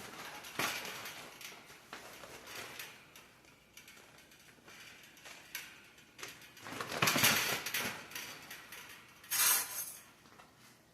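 Rustling and clicking as a mini greenhouse's plastic cover and frame are handled and fastened, with two louder noisy stretches about seven and nine and a half seconds in.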